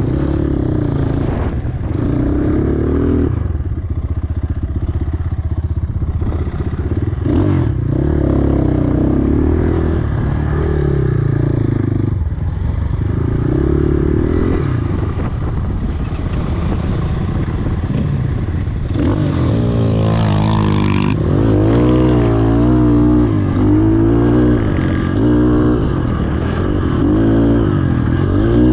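A 250 cc enduro motorcycle engine being ridden, the throttle opening and closing so that the engine pitch rises and falls again and again. From about two-thirds of the way in, the revs swing up and down more quickly.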